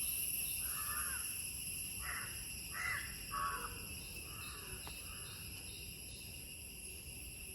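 A crow cawing about six times over the first five seconds, over a steady high-pitched drone.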